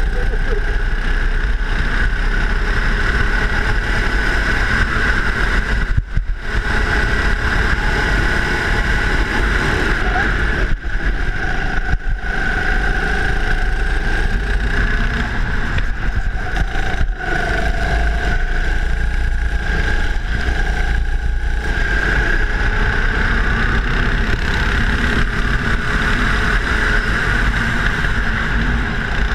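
Go-kart engine running continuously under throttle as the kart laps the track, with a few brief dips in the sound.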